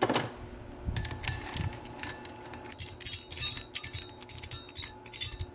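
Quick metallic clicking and clinking of a socket wrench tightening the steel head bolts into an aluminium heat-sink cylinder head, in irregular runs of clicks.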